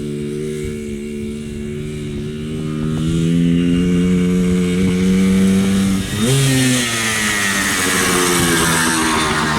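Yamaha Blaster ATV's 195cc two-stroke single-cylinder engine running under throttle, its pitch climbing about three seconds in, then dropping and jumping sharply about six seconds in. After that a loud rushing hiss rides over the engine.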